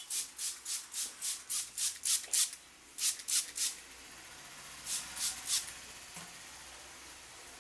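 Hands rubbing briskly over the scalp and hair in a head massage: even rubbing strokes, about four a second, stop about two and a half seconds in. Two short runs of three strokes follow, then only a faint steady hiss.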